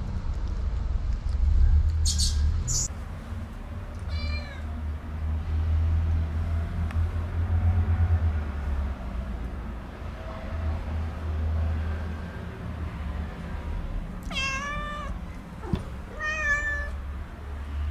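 Tabby cat meowing three times: one short call about four seconds in, then two longer ones near the end, about two seconds apart, over a steady low rumble.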